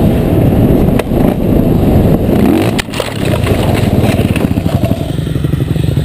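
Dirt bike engine running hard on a trail. About three seconds in, the bike crashes: sharp knocks and a brief drop in the engine sound. A dirt bike engine then keeps running at a steady, pulsing beat.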